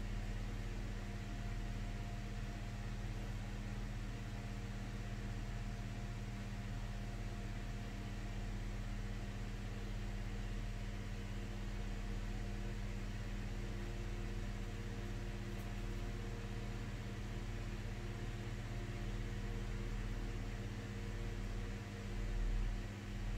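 Steady low electrical hum with an even hiss behind it, unchanging throughout, like a fan or appliance running in a small room. A brief low bump near the end.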